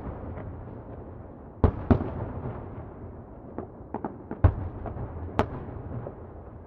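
Distant fireworks exploding: sharp irregular bangs over a steady low rumble of echo, two close together about two seconds in, then a quick cluster in the middle, one bang louder than the rest.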